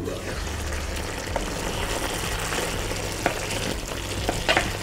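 Meatballs simmering in beer and onion sauce in a frying pan, a steady sizzle, with a few light clicks near the end as a wooden spoon stirs them.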